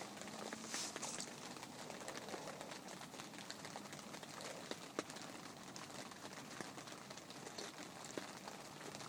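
Light rain pattering: a steady soft hiss with scattered sharp drip ticks, and a brief louder hiss about a second in.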